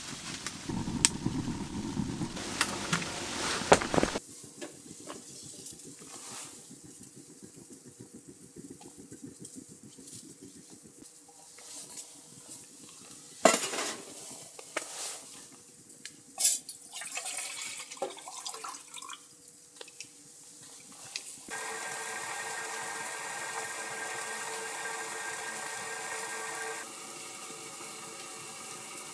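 Camp cookware handled with a few sharp clinks and knocks, then a steady run of liquid being poured or flowing, which drops a step in level near the end.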